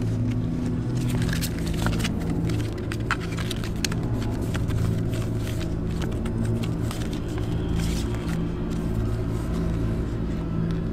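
A low, steady droning rumble made of several held low tones, with scattered clicks and crackles through the first half.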